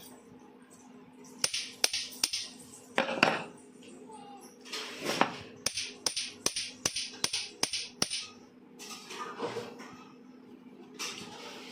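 Hammer knocking on the metal parts of an angle grinder to drive out a broken, worn-out bearing: sharp knocks in irregular groups, with a quicker run of taps about three a second in the middle.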